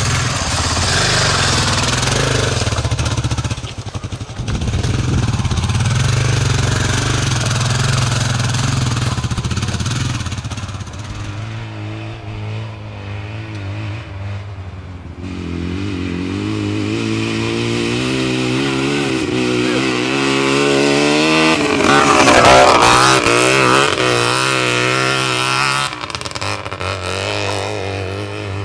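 Dirt bike engine running and revving. From about halfway through, its note climbs steadily in pitch as it accelerates, loudest a little past two-thirds of the way, then settles.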